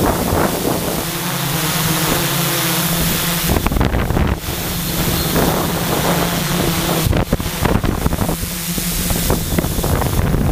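DJI quadcopter's propellers and electric motors running close to its onboard camera's microphone: a steady low hum under a hiss, with gusts of wind buffeting on the mic.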